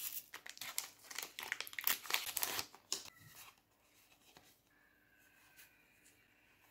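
Crinkling and rustling of a foil booster pack and trading cards being handled for about three seconds, then much quieter sliding of cards being flipped through.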